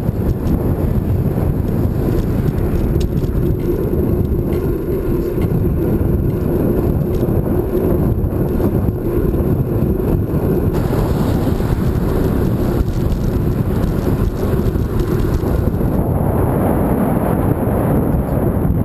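Wind rumbling over the microphone of an Ion Air Pro Lite action camera on a moving bicycle: a loud, steady noise. The rumble shifts slightly about eleven and sixteen seconds in.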